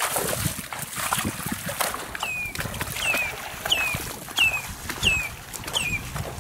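Cattle wading in shallow floodwater, water sloshing and splashing around their legs. From about two seconds in, a bird repeats a short high call that falls in pitch, about three calls every two seconds.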